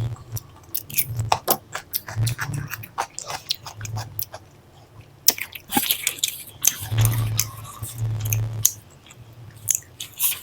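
Close-miked wet chewing and mouth sounds of a person eating a soft curry with flatbread, with irregular smacks and clicks throughout.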